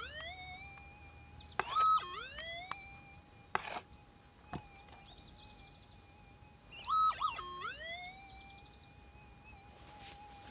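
Minelab SDC 2300 metal detector's steady threshold hum, broken twice by a short higher beep and a dip that glides back up to the hum: the detector signalling a target. A couple of sharp knocks come in between.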